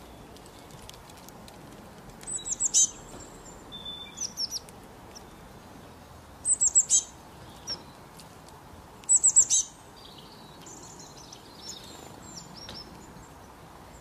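Small songbirds calling: three quick runs of four or five very high, falling notes, about a second and then two and a half seconds apart, with softer, scattered chirps between and after them over a faint steady hiss.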